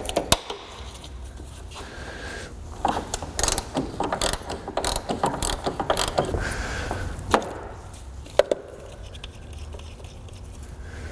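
Hand ratchet clicking in short runs as a bolt is backed out, with scattered clinks of metal tools against the engine.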